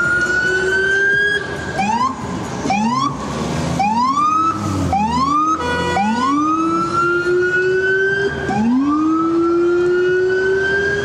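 Emergency vehicle siren. It sounds in rising wails that sweep up, hold, then drop back and start again: a string of quick short rises in the first half, then two long, slow rises. Street traffic runs underneath.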